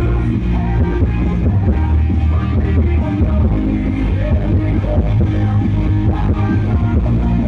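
Rock music with guitars and heavy bass played loud through a PA sound system of OHM TRS bass cabinets and tops during a sound check.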